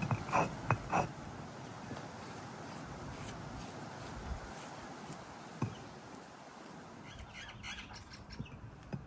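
Spice paste being mixed in a bowl: a quick run of short sharp clicks in the first second, a faint steady hiss, then a few softer clicks near the end.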